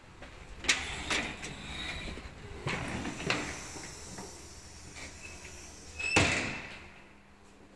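Metal security screen door being opened and passed through: a few sharp latch and handle clicks and knocks in the first few seconds, then a louder metallic clatter with a brief ring about six seconds in.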